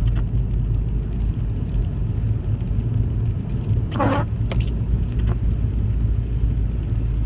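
Car driving, heard from inside the cabin: a steady low rumble of engine and road noise, with a short squeak about four seconds in.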